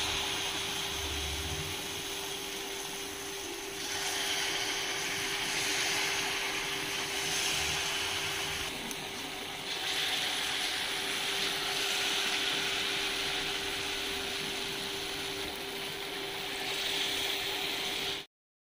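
Fritters of palm-pulp batter deep-frying in hot oil in a kadai: a steady sizzle that grows louder for stretches as more batter goes into the oil, then cuts off abruptly just before the end.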